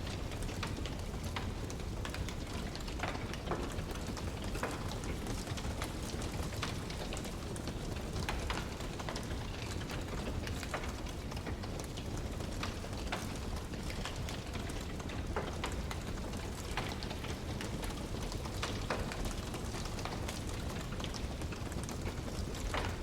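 Wood fire burning in a fireplace, crackling with irregular small pops and snaps over a steady low rumble.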